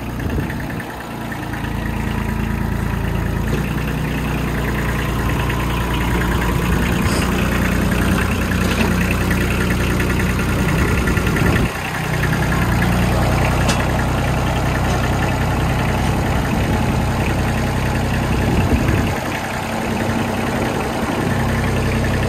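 Kioti CK25 tractor's three-cylinder diesel engine idling steadily, heard up close over the open engine bay, on a test run after its oil cooler was replaced. The level dips briefly about twelve seconds in.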